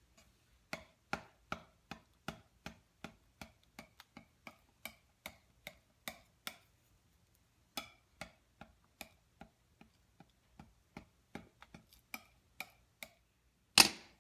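A palette knife tapping and chopping blue ink on a slab, about three quick clicks a second, with a pause about two thirds of the way through. Two much louder knocks come near the end.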